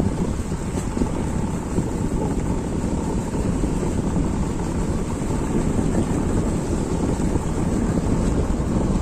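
Steady heavy rain with a low wind rumble on the microphone.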